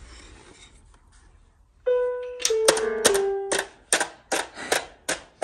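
Wooden toy piano with bell-like tones: a baby strikes its keys in a quick, uneven string of about a dozen notes, starting about two seconds in, the first few stepping down in pitch, with the keys clacking.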